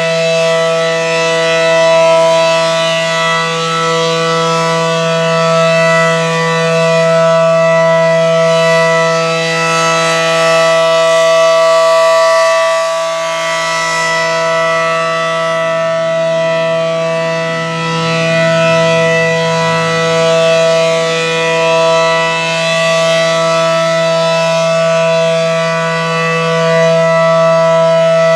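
ACA Allertor 125 rotating outdoor warning siren sounding the Alert signal: one steady, unwavering tone, rich in overtones, that swells and dips in loudness every several seconds as the rotating horn turns toward and away. This is the steady-tone signal of a routine weekly test.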